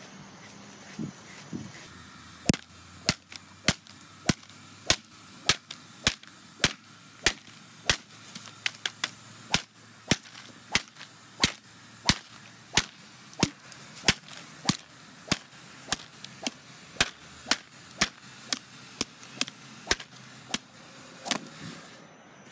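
Repeated sharp cracks of a thin whip-like lash striking a package lying on grass, in a steady rhythm of about three strikes every two seconds. They begin a couple of seconds in and stop near the end.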